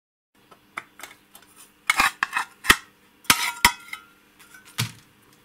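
Metal instrument case and small parts being handled as the indicator is opened: a run of sharp metallic clicks, clinks and short scrapes, loudest between about two and four seconds in, with a final knock near the end.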